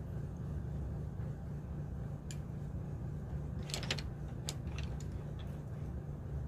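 A steady low hum, with a few light clicks and a brief clatter of wooden coloured pencils being put down and picked up about halfway through.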